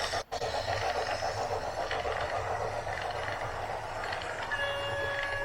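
Heavy machinery running with a steady low rumble and rattling noise, joined about four and a half seconds in by a steady high whine.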